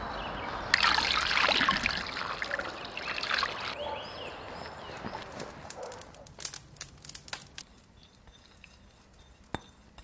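Liquid pouring and trickling, loudest for about three seconds from just under a second in, then dying down to scattered light clicks and taps.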